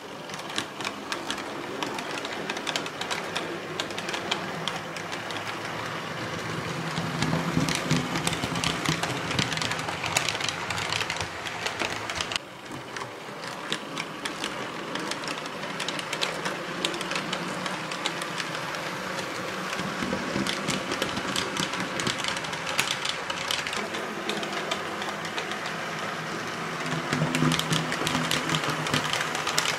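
H0 model of a CD Cargo class 750 'Brejlovec' diesel locomotive running with a container train: a mechanical whir with dense clicking and rattling of wheels on the track. It grows louder over the first seconds as the train comes out of the tunnel and nears.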